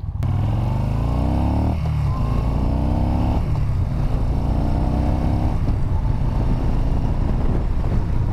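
2015 Yamaha Bolt's air-cooled 942 cc V-twin on its stock exhaust, accelerating through the gears. Revs climb three times, with upshifts about two and three and a half seconds in, then settle to a steadier cruise for the last few seconds.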